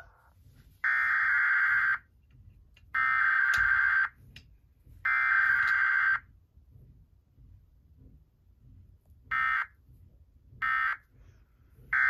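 Emergency Alert System SAME data tones: three buzzy digital bursts of about a second each, a second apart, carrying the alert header, then three short bursts of the end-of-message code, with no attention tone between. This is the sequence of an automated weekly EAS test.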